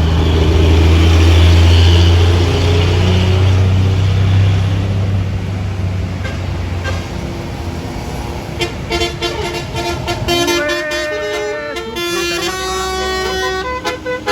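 A bus's diesel engine runs loud at close range. About halfway through it gives way to a telolet 'basuri' multi-tone horn playing a melody of held notes that step up and down in pitch.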